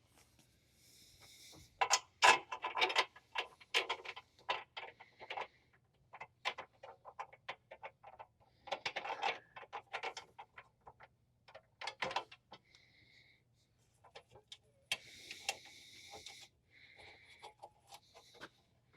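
Bolts and nuts being hand-tightened through a fence rail channel: irregular metallic clicks and knocks, with a few short scraping sounds as parts are handled.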